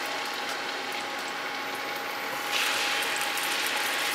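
Marinated chicken breast frying in a little oil in a non-stick pan: a steady sizzle that grows louder and brighter about two and a half seconds in, as a second piece is laid in the pan. A steady hum from the electric cooktop runs underneath.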